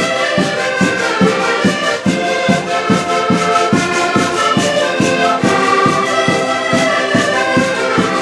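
A group of concertinas (diatonic button accordions) playing a lively traditional tune together, with a steady bass beat about three times a second under the melody.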